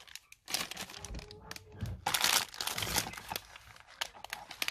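Thin plastic packaging bags crinkling and rustling in uneven bursts as they are handled and shifted about, with a few small sharp crackles.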